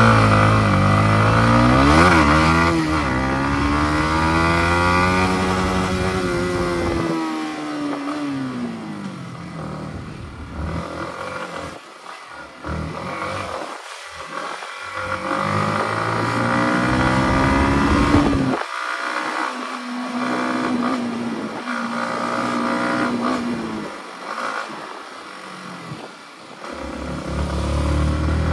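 Yamaha MT-15's single-cylinder motorcycle engine running under way, its pitch rising and falling as the bike speeds up and slows. There is a sharp rev about two seconds in, a long slow fall in pitch over the next few seconds, another climb around the middle, and steadier running after that.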